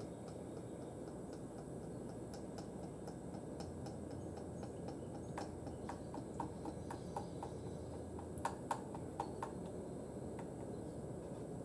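Motor oil glugging out of a quart bottle into a funnel, heard as a faint series of short ticks and glugs that come in quicker runs of about four a second through the middle.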